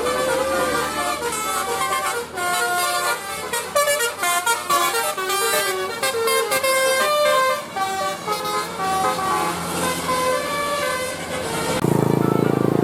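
Bus 'telolet' musical horn playing a tune of quick, changing notes, several tones sounding together. About twelve seconds in it gives way to a louder, lower steady horn blast.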